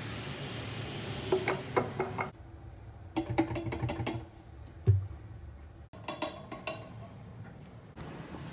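Scattered metallic clinks and knocks of plumbing parts being handled at a sink, with one heavier knock about five seconds in and abrupt changes of background between short clips.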